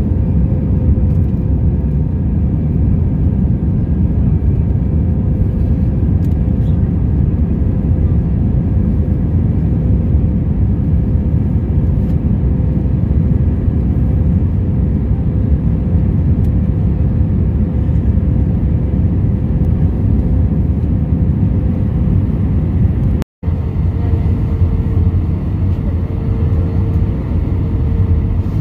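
Steady roar inside the cabin of an Airbus A319 on descent: its CFM56 turbofan engines and the rushing air, heard from a window seat over the wing, with a faint steady whine over the low rumble. The sound cuts out completely for a moment about 23 seconds in, then resumes.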